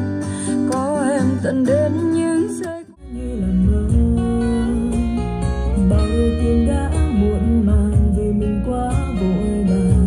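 A song with acoustic guitar and a singing voice playing through an LG XBOOM GO PL7 Bluetooth speaker. About three seconds in the music cuts out briefly and comes back louder, with fuller, heavier bass, as the speaker's volume goes up from 70% to 80%.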